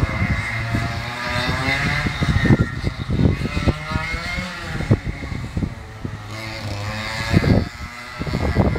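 A 100 cc two-stroke racing kart engine running hard, its pitch rising and falling as the kart accelerates out of and slows into the corners. Several sudden low thumps break through it.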